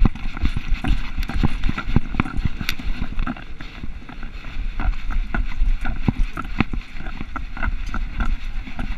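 Irregular knocks and thumps, several a second, from a GoPro camera strapped to a dog's head being jostled as the dog moves, over a low rumble of wind and handling on the microphone.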